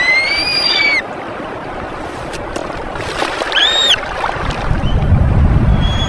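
High, clear animal calls over a steady watery background: an arched call about a second long at the start, a shorter one a little after halfway, and a faint thin note near the end. A low rumble builds through the second half.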